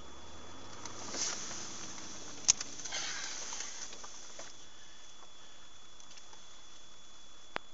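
Faint steady hiss of road and cabin noise from a dashcam inside a moving vehicle, with a single sharp click about two and a half seconds in.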